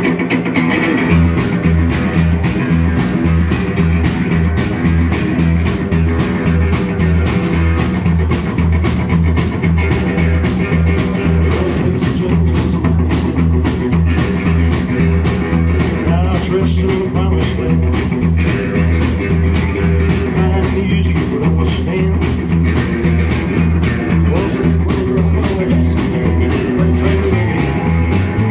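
Live rockabilly band playing an uptempo boogie on upright bass, electric and acoustic guitars and drums, kicking in together about a second in with a steady, driving beat.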